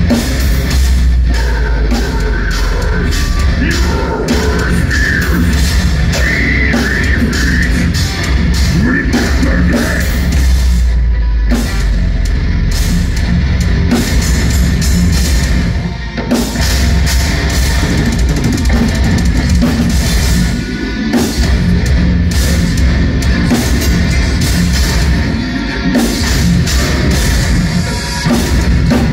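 A metal band playing live and loud: distorted electric guitars and bass over a drum kit hammering out fast, dense drum and cymbal hits, with a couple of brief breaks midway.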